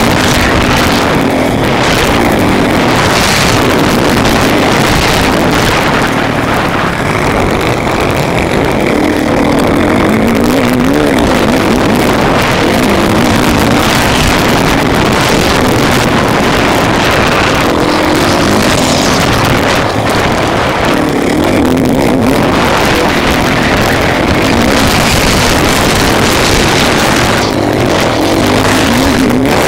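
Motocross bike engine heard close up from on the bike while racing, revving up and falling back again and again as the rider accelerates, shifts and shuts off for the track's turns and jumps.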